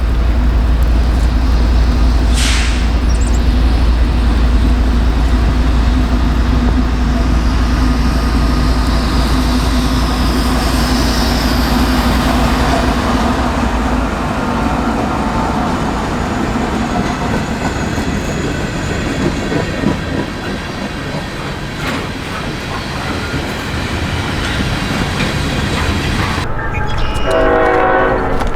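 A diesel freight train passing close by, with a heavy low rumble and wheels clattering on the rail joints; the rumble eases about halfway through. A locomotive air horn sounds briefly near the end.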